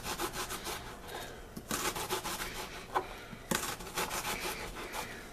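Small kitchen knife slicing through a raw onion held in the hand: a crisp, crackling rasp as the blade cuts through the layers, in three runs of quick strokes.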